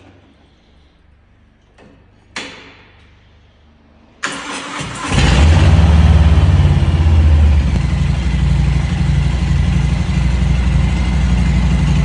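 Harley-Davidson V-twin motorcycle engine being started: a short sharp sound about two seconds in, the starter cranking for under a second, then the engine catches and settles into a loud, deep idle, in a concrete underground car park.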